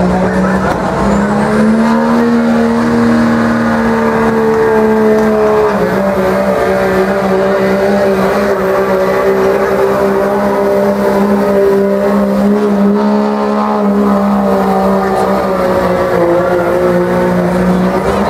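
Dodge Ram pickup's Cummins turbo-diesel engine held at high revs under full load as the truck drags a weighted pulling sled, its tires spinning in the dirt. The engine note is steady, rising slightly in the first two seconds and dipping a little in pitch about six seconds in.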